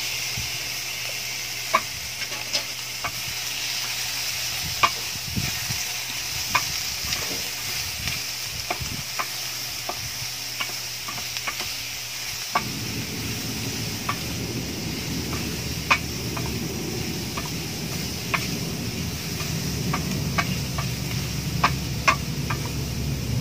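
Squid and vegetables sizzling as they fry in a hot metal pan, stirred with a utensil that clicks and scrapes against the pan now and then. A low steady hum joins about halfway through.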